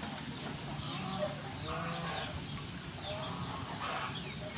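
Chickens clucking, with short high bird chirps coming again and again throughout.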